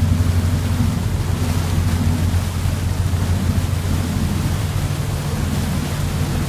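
Boat engine running steadily under way, a constant low drone, over the hiss of wind and rushing wake water.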